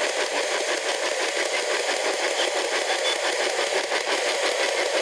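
P-SB11 dual-channel spirit box sweeping through AM and FM radio stations every 150 milliseconds, one band in reverse and one forward. It makes a steady, rapidly chopping radio static, about six or seven chops a second.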